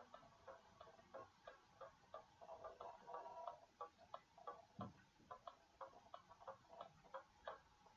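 Faint background music: a light ticking rhythm, about three ticks a second, with soft plucked notes.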